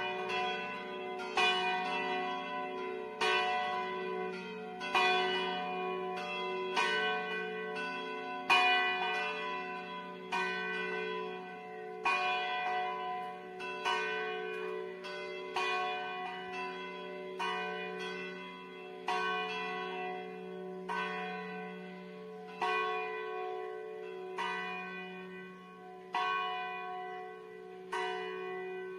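Four church bells swinging in a full distesa peal, overlapping strikes ringing on with a steady hum beneath. In the second half the strikes come further apart and the ringing fades as the peal slows.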